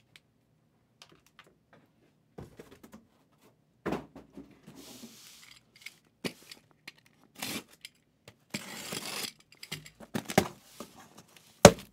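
Cardboard case being handled and shifted: scattered light knocks and taps, two scraping slides of cardboard, and a sharp thump near the end.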